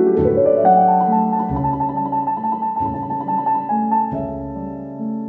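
Piano background music: a quick rising run of notes in the first second, then a rapidly repeated high note over slower bass notes.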